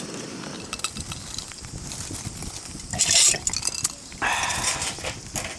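Metal tongs clinking and knocking lumps of charcoal about in a steel fire stand: a run of small sharp clicks, with two short bursts of noise about three and four seconds in.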